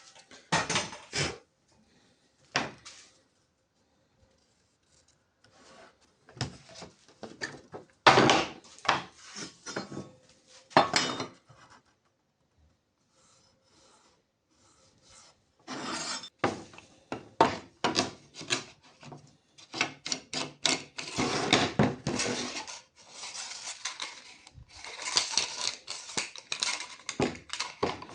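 Wooden and laminate workpieces being handled on a workbench: irregular knocks, clicks and rubbing scrapes coming in clusters, with two short pauses.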